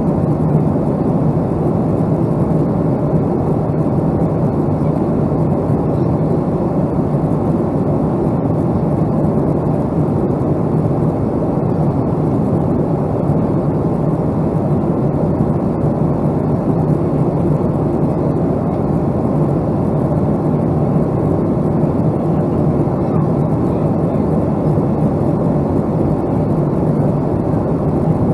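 Steady, unbroken roar of a Boeing 757-200 jet airliner's engines and airflow, with a constant low hum underneath.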